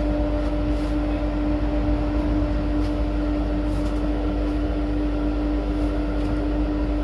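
Belt grinder with a finishing belt running steadily: a constant motor hum with a rough noise over it.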